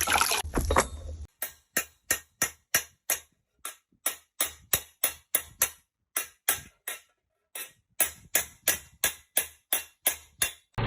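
A noisy hiss cuts off about a second in. It is followed by an evenly paced run of short, sharp percussive taps, about three a second, with two brief pauses.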